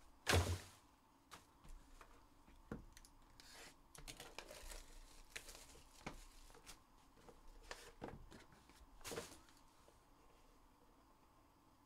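Trading cards and a cardboard card box handled by hand on a table: a thump about half a second in, then scattered taps and short rustles of card and packaging, another rustle near the end.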